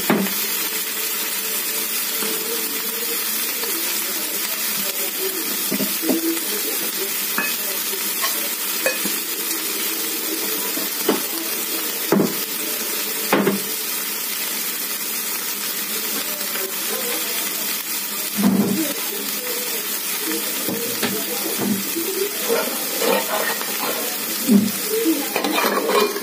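Eggplant and tomato pieces sizzling steadily as they fry in a metal kadhai, with a few scattered knocks against the pan. Near the end a metal lid clatters as it is set on the pan.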